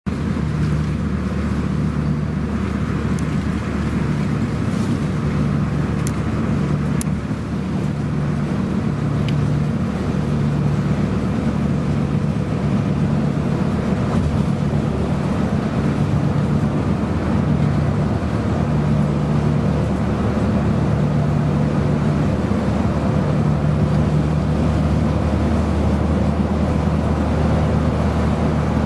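Bus cruising on a highway, heard from inside the cabin: a steady engine drone and road noise, with a low hum that swells and fades every few seconds.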